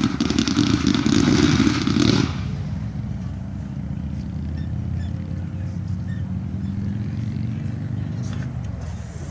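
A 500-gram firework cake going off in a loud, rapid burst of crackling bangs that stops about two seconds in, followed by a steady low rumble.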